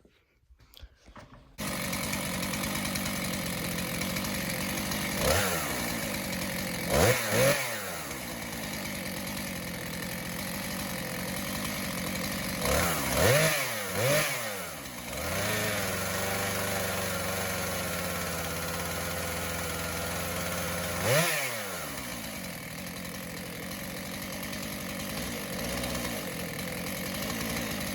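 Rebuilt STIHL MS 441 two-stroke chainsaw idling, with about six quick throttle blips that rise and fall straight back to idle. It starts about two seconds in.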